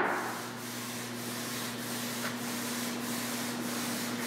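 The echo of a ceramic armour plate's drop onto the floor fades within the first half second, leaving a steady hiss with a constant low hum.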